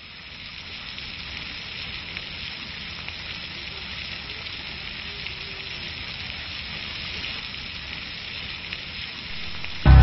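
Steady hiss of a water jet spraying and splashing down, fading in at the start. Loud music cuts in at the very end.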